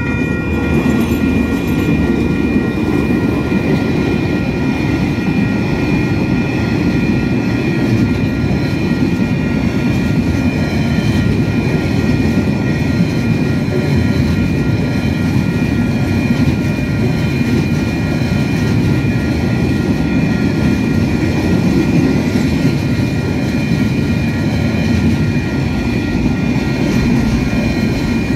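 A long freight train hauled by DL-class diesel-electric locomotives and a DSG locomotive passes close by. Its rolling wheels make a steady, heavy rumble that builds just after the start as the locomotives reach the crossing and then holds as the wagons run past. Above the rumble, the level-crossing alarm rings with steady high tones.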